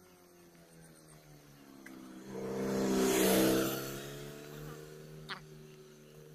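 A van drives past, its engine hum and tyre noise swelling to a peak about three seconds in, then fading as it moves away.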